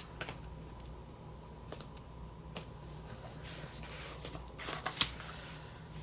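Sticker sheets and planner paper being handled as stickers are peeled and placed: faint rustling with a few light clicks and taps, the loudest about five seconds in.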